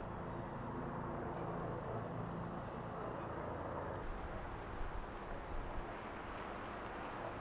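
Steady outdoor background noise with a low hum from a vehicle engine running, the hum fading after the first few seconds.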